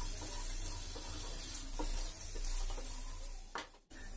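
Brinjal pieces, peanuts and spice powder sizzling in hot oil in a kadai while a wooden spatula stirs and scrapes them around the pan. The sound breaks off for a moment near the end.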